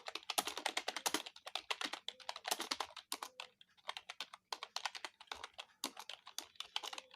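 Fast typing on a computer keyboard: a steady stream of key clicks, several a second, in irregular runs with short pauses between words.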